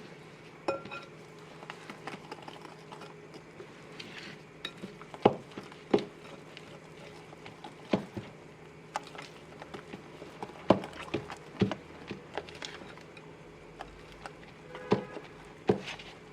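Kitchen utensil clinking and knocking irregularly against a mixing bowl as flour is worked into cake batter, a sharp knock every second or two over a faint steady hum.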